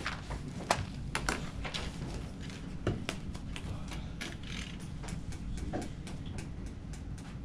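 Room tone of a lecture room: a steady low ventilation hum with many small irregular clicks, taps and rustles of people handling things, the sharpest about a second in.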